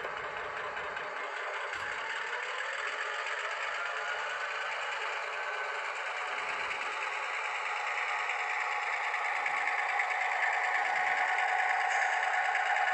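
Diesel engine sound from the ESU LokSound decoder in an HO-scale Athearn Genesis GP15-1 model locomotive, revving up to throttle notch 4 as the model runs. It is thin, with almost no bass, and grows gradually louder.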